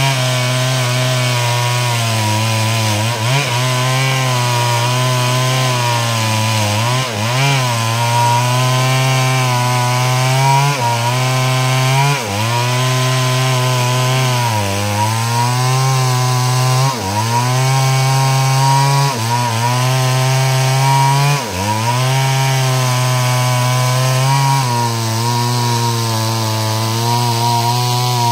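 Stihl two-stroke chainsaw running at high throttle while cutting through wood. The engine note sags every two to three seconds as the chain bites under load, then climbs back.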